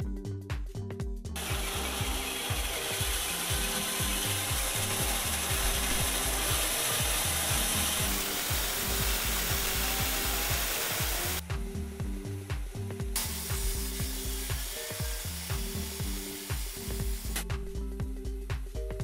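Band saw cutting through a wooden handle blank, a steady hiss of the blade in the wood, in two stretches: from about a second and a half in until past the middle, and again for about four seconds near the end. Background music with a steady beat plays underneath and is heard alone in the gap between the cuts and at the very end.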